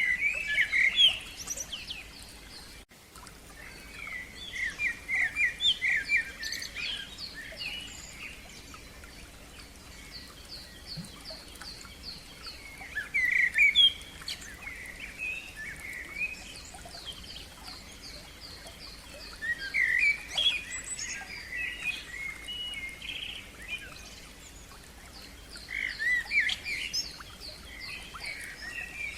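A songbird singing in separate phrases every five to seven seconds, each a quick run of rapidly repeated high notes mixed with lower warbled notes, with pauses in between.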